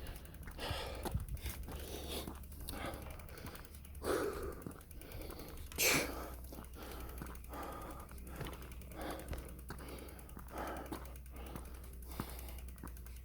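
A man breathing hard, with short heavy puffs about once a second, from the exertion of pushing a bicycle up a long hill.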